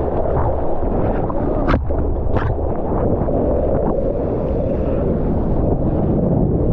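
Water rushing and splashing right at a GoPro as a surfer paddles into a wave, with two sharp splashes about two seconds in.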